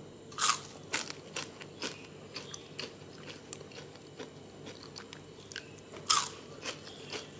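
Someone biting into crispy cornstarch-coated homemade french fries, with a loud crunch about half a second in and another about six seconds in, and smaller crunches of chewing between. The sharp crunch shows the fries are crisp.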